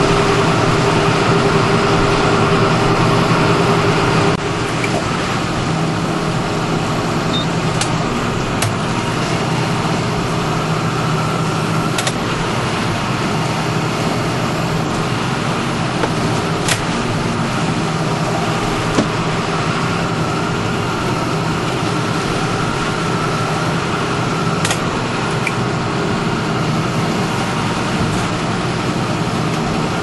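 Cab interior sound of a John Deere 6930 tractor's six-cylinder diesel engine running under working load, a steady drone whose level steps down about four seconds in. A few light clicks come through now and then.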